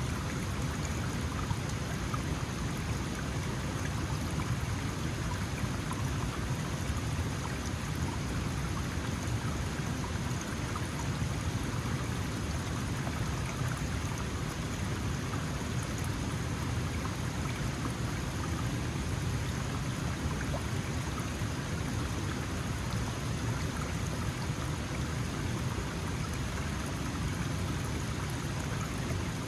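Small mountain stream flowing steadily over rocks: an even rush of water with a deep low rumble and fine splashing on top.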